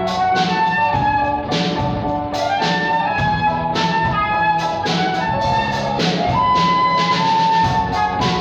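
A live trio: a transverse flute plays the melody in held and moving notes over a steady drum-kit beat with regular cymbal strokes and upright piano accompaniment.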